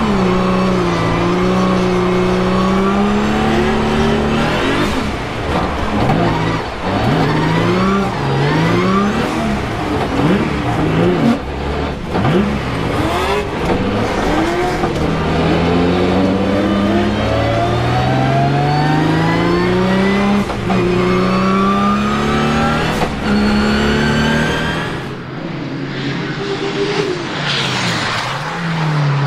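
The swapped-in VR38DETT twin-turbo V6 of a Nissan 200SX, heard from inside the cockpit, revving up and down and held high for long stretches while drifting, with a few sharp cracks. Near the end it changes to the car sliding past, heard from beside the track.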